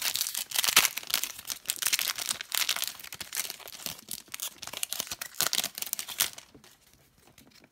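Trading card pack's wrapper crinkling and tearing as it is ripped open by hand, a dense crackle that stops about six seconds in.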